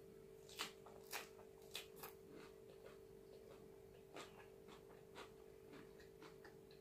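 Faint, crisp chewing of a mouthful of raw lettuce-leaf wrap: a few crunches close together in the first two seconds, then softer, more spaced chews. A steady low hum runs underneath.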